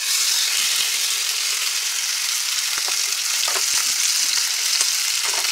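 Raw porterhouse steak searing in olive oil heated to the point of smoking: the sizzle starts suddenly as the steak goes into the pan and holds steady, with a few sharp spits and pops.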